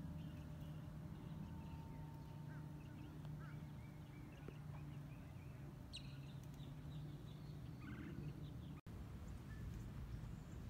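Faint bird calls over a low steady hum, with a brief sharper sound about six seconds in.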